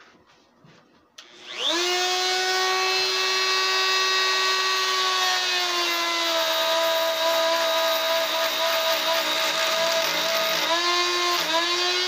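Corded electric drill spinning up about a second in and running with a steady whine, its homemade eye-cutting bit, made from a carpenter's paddle bit, boring into the wood to cut an owl carving's eye. The pitch sags a little about halfway through as the bit bites, and dips briefly twice near the end.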